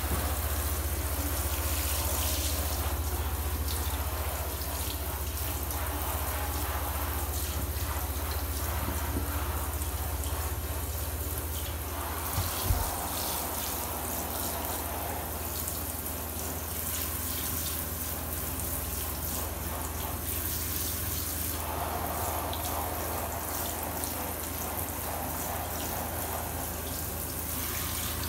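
Handheld shower head spraying water onto a Norwegian Forest Cat's fur in a bathtub: a steady hiss of running water, with a steady low hum underneath and a single bump about twelve seconds in.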